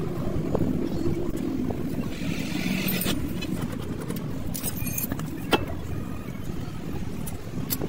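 Steady low vehicle rumble, with a few short sharp clicks of metal brake parts and the wheel being handled.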